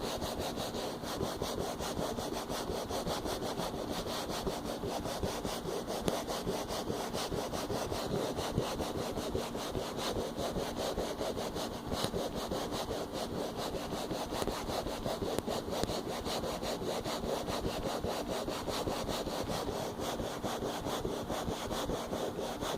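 A continuous rubbing noise: a rapid, even scraping texture that keeps up without a break.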